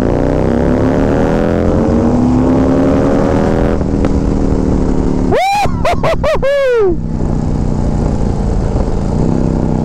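Harley-Davidson Street Glide's Milwaukee-Eight 135 V-twin under hard acceleration, its pitch climbing through a gear for almost four seconds before a shift drops it. About halfway through, the rider lets out a loud whooping yell over the engine, which then pulls on steadily.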